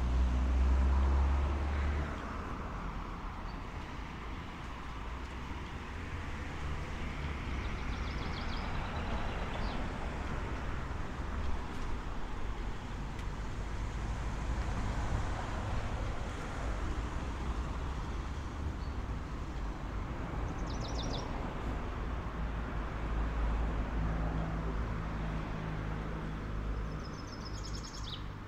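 Cars passing on a nearby road, their noise swelling and fading, with a few short bird chirps about a third of the way in, around two thirds and near the end. A low rumble of wind on the microphone runs underneath, strongest in the first two seconds.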